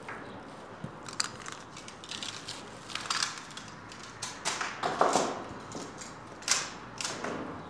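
Flower stems and leaves rustling and crackling as a bouquet is handled and arranged, with several sharp clicks scattered through it, the loudest about five and six and a half seconds in.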